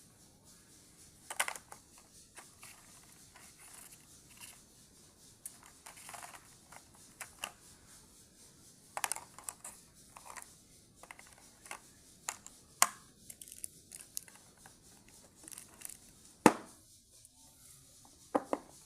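Handling noises from a colour set's packaging being unboxed: scattered sharp clicks and taps with a few brief rustles, the loudest click near the end.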